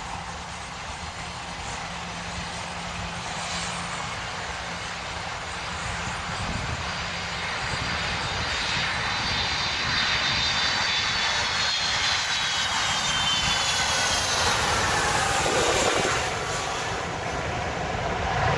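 Boeing 757 twin jet engines on final approach, growing steadily louder as the airliner comes in low. A high whine slides down in pitch as it passes overhead and touches down.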